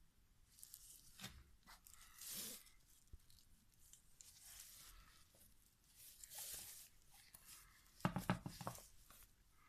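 Faint rustling and scraping handling noises in short bursts, with a brief louder rattle about eight seconds in.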